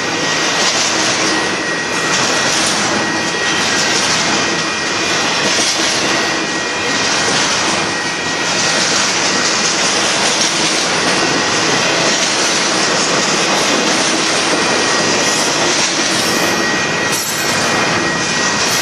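Union Pacific container train rolling past: a steady, loud rush of steel wheels on the rails as the cars go by, with a faint steady high tone over it.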